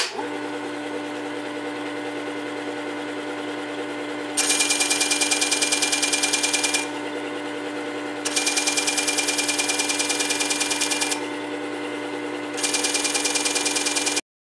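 Work Sharp WS3000 sharpener's motor running steadily, spinning its 120-grit abrasive glass disc. Three times a steel plane iron is pressed against the abrasive for two to three seconds, each pass a loud, rapidly pulsing grinding hiss that grinds the bevel from 25 to 30 degrees. The sound cuts off suddenly near the end.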